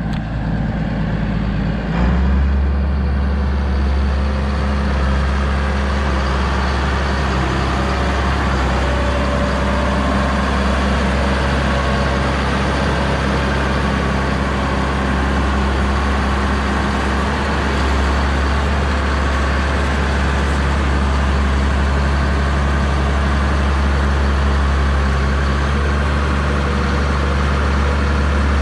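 Tractor engine running steadily at a constant speed, with a deep, even rumble that grows louder about two seconds in.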